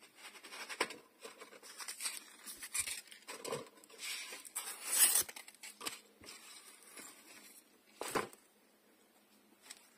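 Paper and plastic packaging rustling and crinkling as a new photo album is opened and handled, its protective tissue sheet and wrapping moving, loudest about five seconds in. A knock about eight seconds in as the album is handled on the table.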